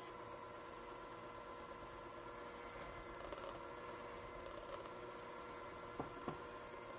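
Electric hand mixer running steadily, its wire beaters whisking a runny egg and oil batter in a glass bowl, with two sharp knocks about six seconds in.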